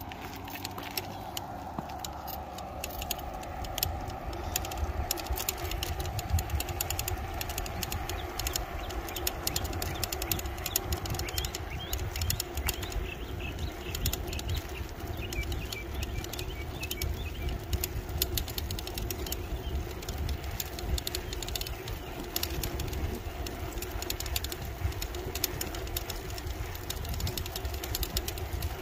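Riding noise from a small electric bike or scooter on rough, cracked asphalt. Wind rumbles on the microphone under a steady motor hum, with frequent rattles and clicks from the ride over the broken pavement.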